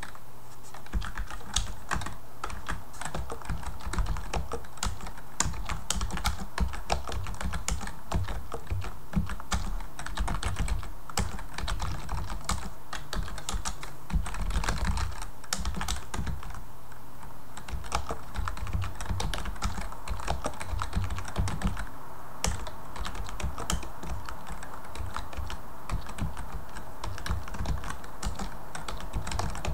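Typing on a computer keyboard: a continuous run of quick, irregular key clicks.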